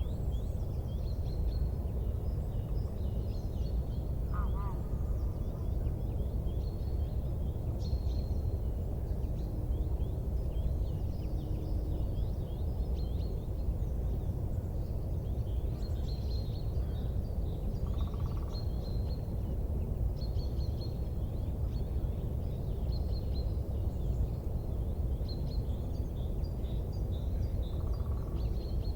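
Steady low rumbling noise with small birds chirping faintly and repeatedly high above it, rather than the sharp pops of a crackling fire.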